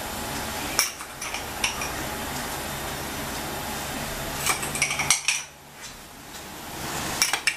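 A metal tablespoon clinking against a cooking pot and sugar container as spoonfuls of sugar are added to tomato sauce: a few scattered clinks, with a cluster about five seconds in and more near the end. Under them, a steady low hum cuts off about five seconds in.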